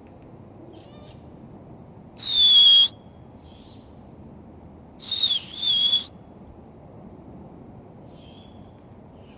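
Barred owls calling: a loud, high whistled screech falling slightly in pitch, then a second one broken in two, with faint short answering calls from other owls.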